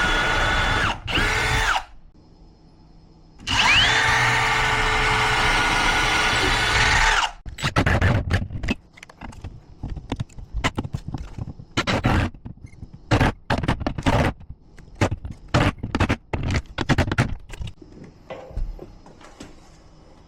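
Power drill running in two bursts, the second spinning up with a rising whine, followed by a run of irregular knocks and clunks from handling tools and hardware.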